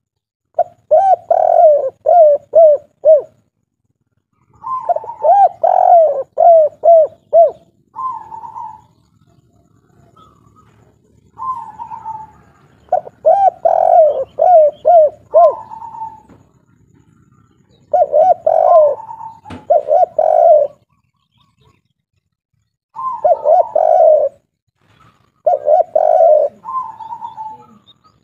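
Derkuku (tekukur) dove of the 'kuk 3' type, cooing in repeated phrases. Each phrase is a run of quick, arching coos, with a higher single coo mixed in, and the phrases come every few seconds with short pauses between them.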